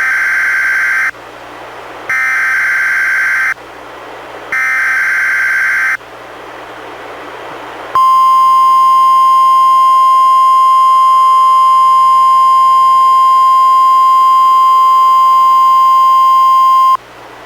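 NOAA Weather Radio Required Weekly Test alert signals: three short bursts of warbling SAME digital header data, each about a second long and separated by radio hiss. After a couple of seconds of hiss, the steady 1050 Hz warning alarm tone sounds for about nine seconds and cuts off abruptly.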